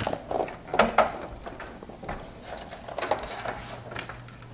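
A few knocks and light scrapes from handling, the sharpest about a second in and more around three seconds in. A faint steady low hum begins near the end.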